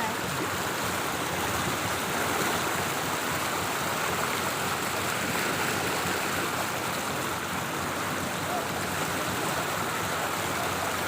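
Floodwater flowing fast, a steady unbroken rushing of water.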